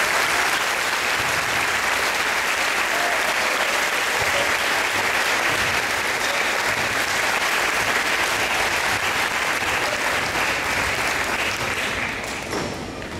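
Audience of children and adults applauding steadily, dying away about twelve seconds in.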